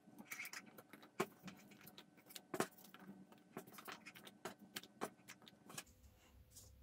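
Light plastic clicks and taps from hands working a 3D-printed Nerf turret: its latch being opened and foam darts pushed into the magazine. Two sharper clicks stand out about a second and two and a half seconds in, and the clicking stops shortly before the end.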